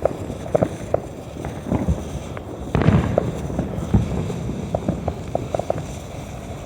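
A bank of ten firework fountains spraying, a steady low rush peppered with many sharp crackles and pops. The loudest surge comes about three seconds in.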